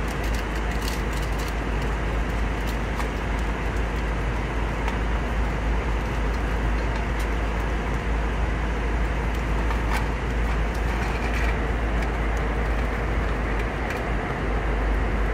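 Steady airliner cabin noise in flight: the even roar of the engines and airflow, with a deep rumble underneath. Small crackles of a foil snack packet being opened and handled come and go on top, most in the first couple of seconds and again about ten seconds in.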